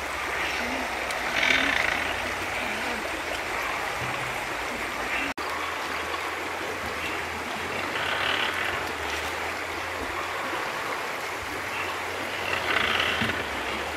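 A stream running steadily, with three short bursts of crunchy chewing as fruit is eaten, the later two from a porcupine gnawing fruit.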